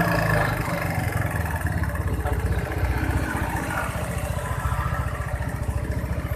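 Yamaha Mio scooter's single-cylinder four-stroke engine idling steadily, with a rapid even pulsing beat.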